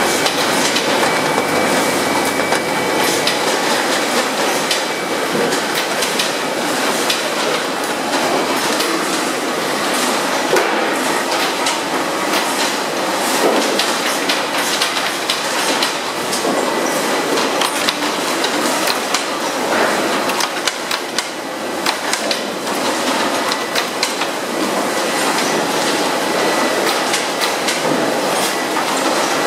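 12-station poultry batching conveyor line running: a steady loud machine clatter of belts and rollers, with frequent sharp clicks and knocks.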